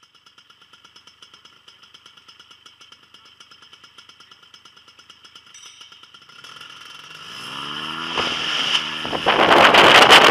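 Paramotor trike engine idling with a fast, even pulsing, then throttled up from about six seconds in, its pitch rising into loud full-power running for take-off, with propeller blast rushing over the microphone near the end.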